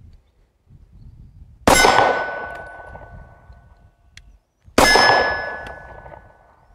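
Two 9mm pistol shots from a Kahr CW9, about three seconds apart, each followed at once by the clang of a hit steel target that rings on and fades over a second or so.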